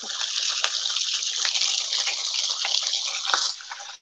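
Wet baby kale sizzling as it hits hot olive oil in a sauté pan: a steady loud hiss with scattered crackles from the water left on the leaves, dropping away about three and a half seconds in.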